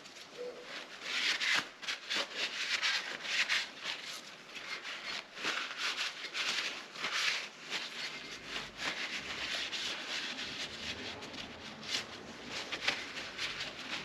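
Hand work on the metal parts of an engine oil pump: irregular rubbing and scrubbing noises with scattered small clicks and knocks as the pump's gears and housings are handled and cleaned.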